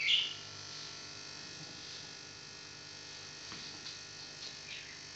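Steady low hum of the room, broken by one short high chirp at the very start and a few faint short chirps near the end from a pet parrot.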